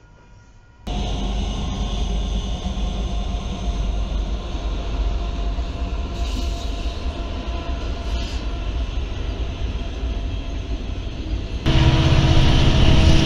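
Norfolk Southern diesel freight locomotives passing: a steady rumble of engines and wheels that starts suddenly about a second in. Near the end it gives way to a louder diesel engine drone as another locomotive approaches.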